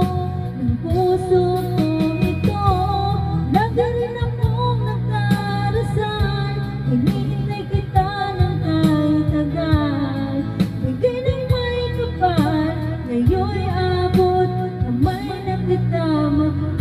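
A woman singing a slow ballad into a handheld microphone over backing music, her voice gliding between held notes.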